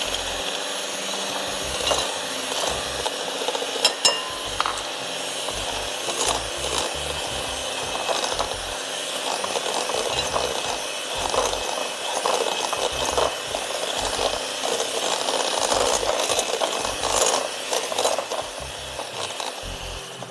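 Electric hand mixer running steadily, its beaters whisking egg white with vanilla and caster sugar in a glass bowl, with a few sharp clinks as the beaters knock the glass.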